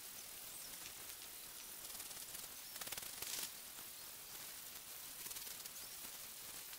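Faint rustling and crinkling of the Rider's Bike In Tent's fabric being folded and bundled up on grass, with a brief louder rustle about three seconds in, over a steady high hiss.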